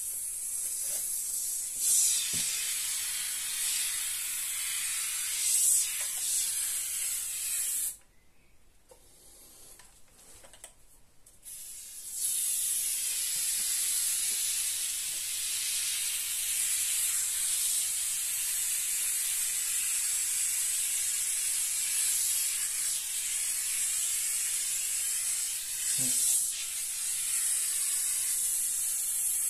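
Hiss of plasterboard adhesive foam spraying from an aerosol can through a foam gun as beads are laid on the board. It stops for about four seconds a third of the way in, then runs on steadily, with one short knock near the end.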